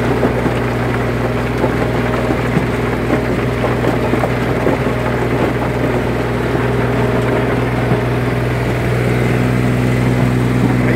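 Yanmar US300D compact tractor's diesel engine running steadily under load while its rear rotary tiller churns dry soil, with scattered small knocks from the tiller.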